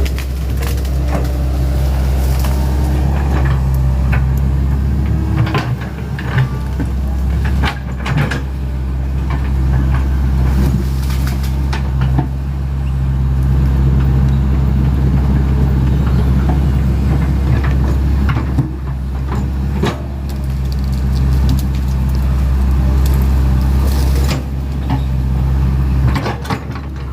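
Hitachi Zaxis 110 excavator's diesel engine running steadily under working load, its pitch and loudness swelling and easing every few seconds as the hydraulics work. Scattered sharp knocks and cracks from the machine working.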